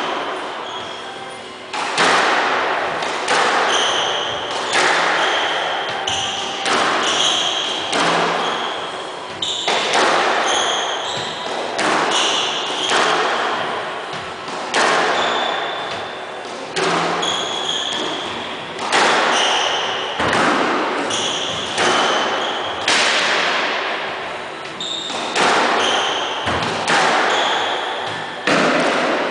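Squash rally: the rubber ball cracks off rackets and walls about once a second, each hit echoing through the enclosed court, with short squeaks from the players' shoes on the wooden floor between shots.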